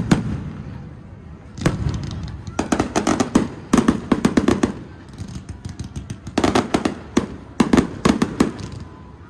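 Aerial fireworks display going off. There is a sharp bang at the start and another about a second and a half later, then rapid strings of crackling reports in three clusters.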